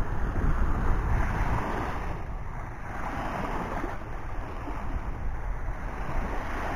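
Small waves washing onto a sandy shore in slow surges, with wind rumbling on the microphone.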